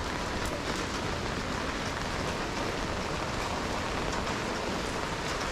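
Heavy rain falling steadily, a continuous hiss with scattered drop ticks.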